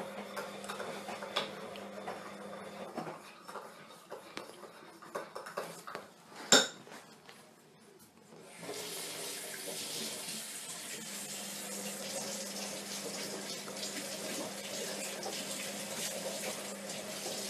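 Chow chow puppy chewing and gnawing on a fleece-lined slipper: small irregular scratchy clicks, with one sharp click about six and a half seconds in. A little after halfway a steady hiss comes in and stays.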